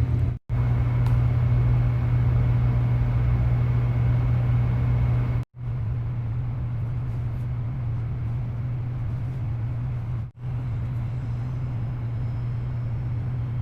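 Steady low machine hum over a constant rushing noise, cut off abruptly for an instant three times.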